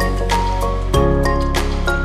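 Background music: held synth chords over a steady bass, changing about a second in, with a regular percussive beat.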